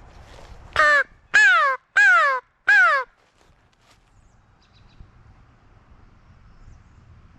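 Hand-blown crow call (Hunter's Specialties Strut Pro-Line) giving four loud caws in quick succession, each falling in pitch. It is used as a turkey locator call, to provoke a tom into gobbling.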